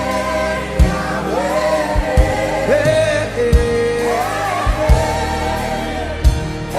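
Gospel worship song: voices singing long, bending held notes over a band, with low thumps from the beat about once a second.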